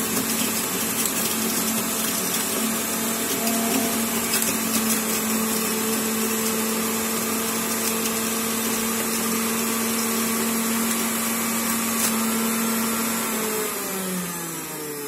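Vitek VT-3653 1 kW centrifugal juicer running with a steady tone, then switched off near the end, its pitch falling as the motor spins down.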